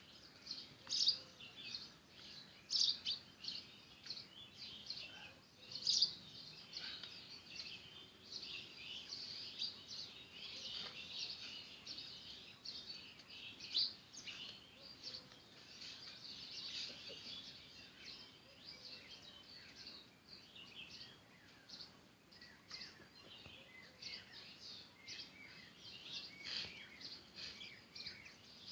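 House sparrows chirping: many short, overlapping chirps that go on without a break, with a few louder ones in the first seconds.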